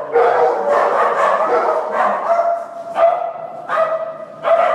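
Dogs in a boarding kennel barking repeatedly, the barks overlapping one another, with louder barks near the end.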